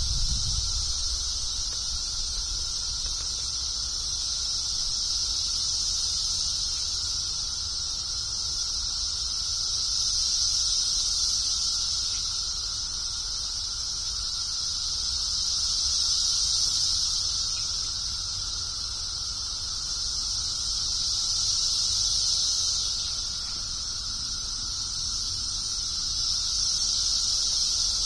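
Dense chorus of periodical cicadas: a loud, steady high buzz that swells and fades every five or six seconds, with a fainter lower drone underneath.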